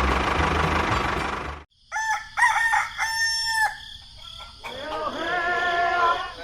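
A steady engine-like running noise cuts off abruptly about a second and a half in. After a short gap a rooster crows in several calls, one held for about half a second. Music with singing comes in during the last second and a half.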